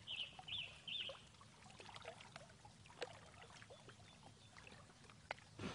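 Faint scattered wooden taps and clicks as ribs are worked into a birch-bark canoe hull, with one clearer tap about three seconds in. Three short high chirps come in the first second.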